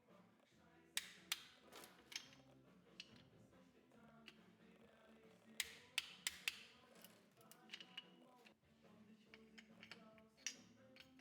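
Irregular sharp clicks and knocks of hand tools being handled and set down on the engine, clustered about a second in and again around six seconds in, over faint background music.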